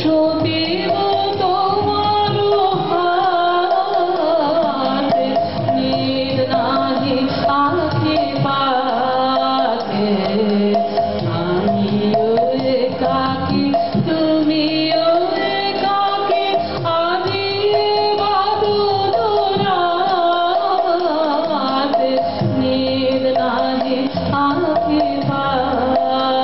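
A woman singing a Bengali folk song live, with tabla playing a steady rhythm under a slowly rising and falling melody.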